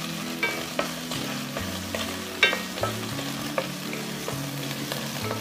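Chopped onion sizzling in hot oil while a wooden spatula stirs it round the wok, with several sharp knocks of the spatula against the pan, the loudest about two and a half seconds in.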